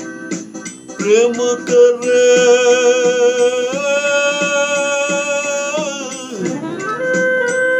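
A man singing a Gujarati poem in long held notes, the melody dipping and rising again a little past six seconds, over plucked-string accompaniment with a steady rhythm.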